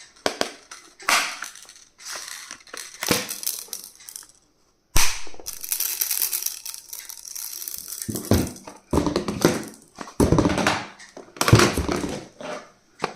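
Handling noise from unboxing: packaging rustling and crinkling with irregular scrapes and knocks, broken by a brief silence about four seconds in.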